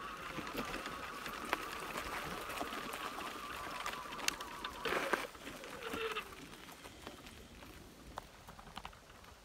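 Wheelchair trike rolling over a gravel path, its drive giving a steady high whine while small stones tick under the tyres. The whine stops about five seconds in, with two short rushing sounds around then, and after that only faint gravel ticks remain.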